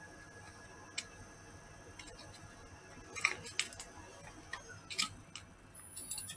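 Wood lathe spinning a bowl, running quietly with a faint steady hum and thin high whine. A few light clicks and ticks come about a second in, around three seconds in and near five seconds.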